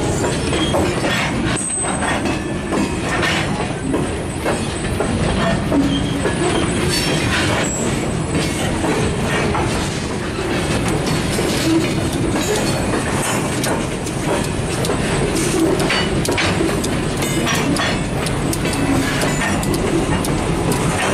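Covered hopper cars rolling slowly on jointed yard track, their wheels clicking and clanking over the rail joints with brief high flange squeal. Under it run the diesel engines of a pair of EMD SW1500 switchers moving the cut.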